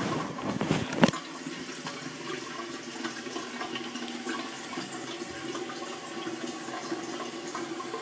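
1927 Kohler Dorking toilet flushing: water rushing until a sharp clunk about a second in, then the tank refilling with a steady hiss and faint steady tones.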